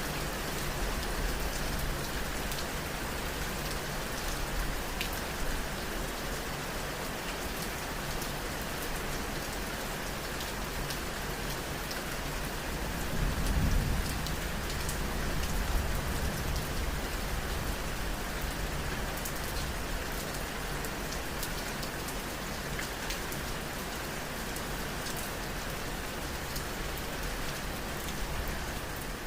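Steady rain falling on a hard surface, with many individual drops ticking. About halfway through, a low rumble swells briefly and fades.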